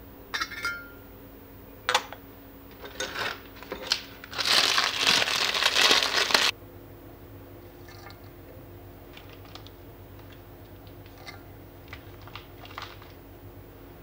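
A glass teapot's metal lid clinks with a short ring as it is lifted. Dry crinkling and crunching follow as dried tea is handled; this is loudest from about four to six and a half seconds in and stops suddenly. Light ticks and patters come later as spoonfuls of dried tea drop into the glass teapot.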